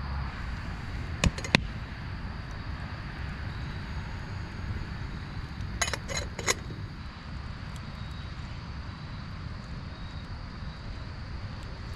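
Metal lid of a small stainless steel camp pot clinking against the pot four times in quick succession as it is handled on a campfire grate, about halfway through. Two sharp clicks a little over a second in, over steady low background noise.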